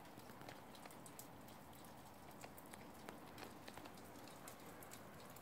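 Near silence: a faint steady hiss of outdoor ambience with many faint, irregular ticks scattered through it.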